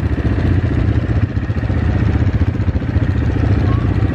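ATV engine running steadily, a loud low rumble made of fast firing pulses.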